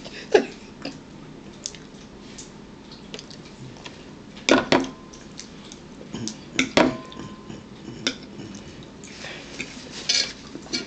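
Dishes and cutlery clinking at a meal table: a few scattered taps and clinks, two louder ones about halfway through, each followed by a brief ring.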